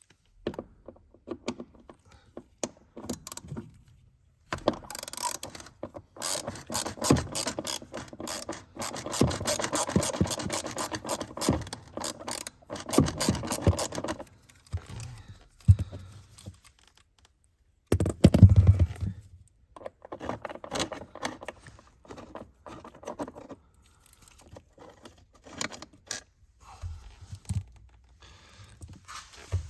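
Metal hand tools clattering and clicking as a ratchet works the T30 Torx bolts on the footwell trim under the dashboard, in fits and starts, with one heavy thump about two-thirds of the way through.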